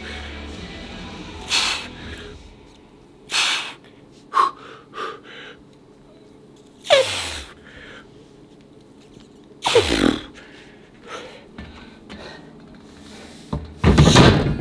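A bodybuilder's sharp, forceful exhalations, one with each repetition of a set of EZ-bar shoulder raises, coming every two to three seconds; two of them carry a short grunt that falls in pitch. Near the end there is a louder, deeper thud, with a knock just before it.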